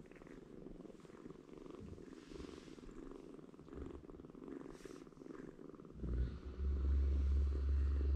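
Kittens purring steadily. A loud low rumble joins about six seconds in and covers the last two seconds.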